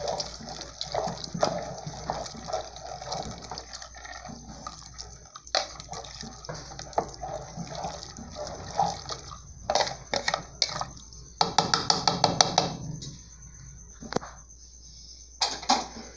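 Wooden spoon stirring macaroni in tomato broth inside an aluminium pressure cooker: liquid sloshing, with the spoon scraping and knocking against the pot. A quick run of knocks about three-quarters of the way through is the loudest part.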